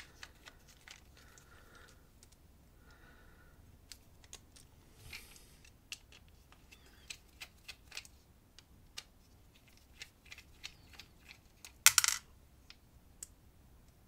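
Precision screwdriver turning out the small screws at the back of a Carbine CDSP padlock cylinder: faint scattered metallic ticks and scrapes, with one louder clink of small metal parts near the end.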